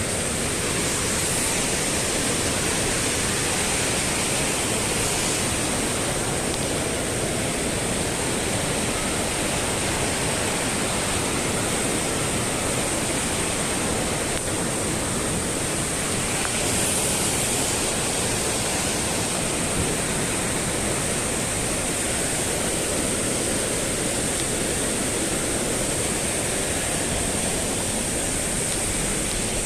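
Steady rushing of whitewater in a mountain gorge's stream and waterfalls, an even unbroken wash of noise with a thin high hiss over it.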